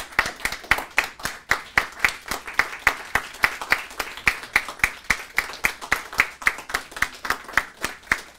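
Hand clapping: a small audience applauding, with one clapper close by, sharp and steady at about five claps a second.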